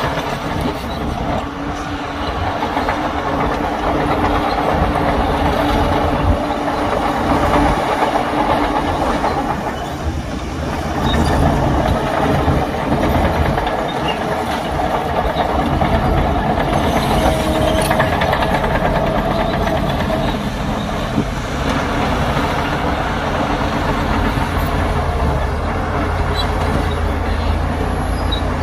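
Heavy diesel earthmoving machinery working, a bulldozer and dump truck: a loud, steady engine drone with rattling and clatter over it.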